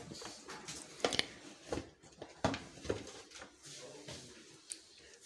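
Metal pressure cooker being opened: the lid is turned and lifted off, with several light metallic clicks and knocks.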